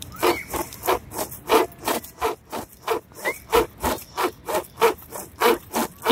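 Pocket chain saw pulled back and forth through a fallen tree branch: quick, even rasping strokes, about three to four a second.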